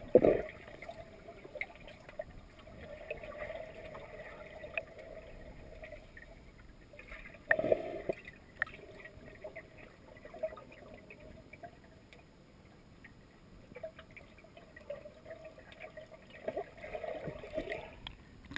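Muffled gurgling and bubbling of water heard underwater in a swimming pool, with louder bursts of bubbling near the start, about seven and a half seconds in, and again near the end.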